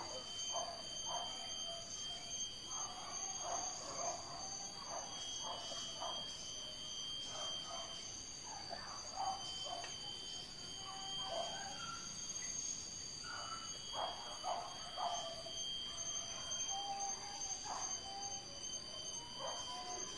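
Hunting dogs barking and yelping in the distance, short calls coming irregularly, over a steady high-pitched buzzing.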